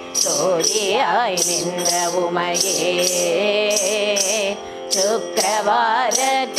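Group of women singing a Carnatic devotional hymn together over a steady electronic shruti-box drone, with a metallic tapping that keeps the beat about two to three times a second.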